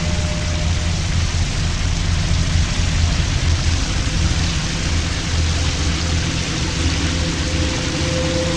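Shower running: a steady hiss of water spraying from the showerhead, with a low steady hum underneath.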